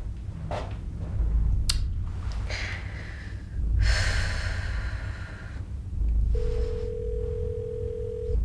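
Smartphone sounding for an incoming call: a steady single-pitched tone held for about two seconds, starting about six seconds in. Under it a low rumble swells and fades, and a hissing rush comes about four seconds in.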